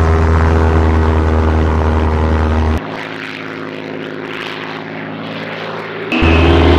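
Piston engines of propeller fighter planes droning steadily and loudly. A little under halfway the sound drops abruptly to a quieter, thinner drone without the deep bass. Near the end it cuts back to the full loud drone, with a higher whine joining in.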